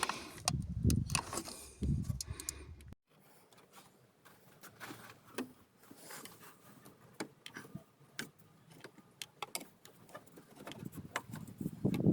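Scattered small metallic clicks and clinks of hand tools at work, irregular and fairly quiet. The background sound cuts off abruptly about three seconds in.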